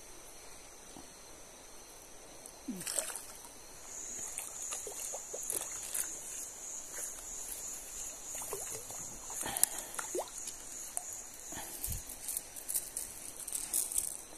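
Water splashing and sloshing with scattered sharp clicks, over a steady high-pitched buzz that starts pulsing about four seconds in.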